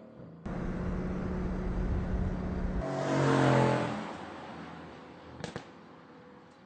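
Mercedes-Benz C63 AMG Estate's V8 engine at a racetrack: a steady low engine drone starts abruptly about half a second in, then the car passes, loudest about three and a half seconds in and fading away. Two short clicks follow near the end.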